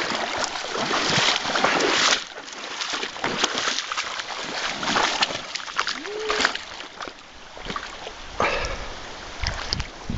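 Irregular splashing and sloshing of water as a hooked fish thrashes at the surface while being played in, loudest in the first two seconds.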